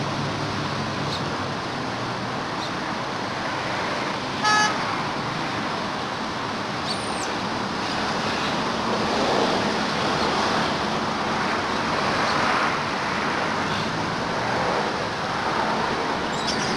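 Steady traffic noise, with a short vehicle horn toot about four and a half seconds in.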